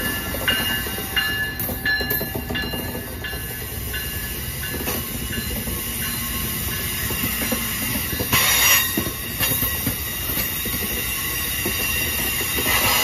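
Amtrak train rolling past close by: a Siemens ACS-64 electric locomotive followed by Amfleet passenger coaches, a steady rumble of steel wheels on rail. Thin high wheel squeal in the first few seconds, and a brief louder burst of noise about eight and a half seconds in.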